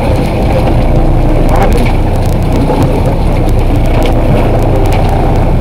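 Sport-fishing boat's engine running with a steady, loud low rumble.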